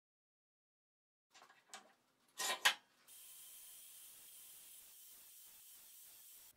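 A few short scratching strokes of a marker drawn along a square on a steel bar, then an angle grinder's abrasive disc grinding the steel bar, a steady faint hiss that cuts off suddenly near the end.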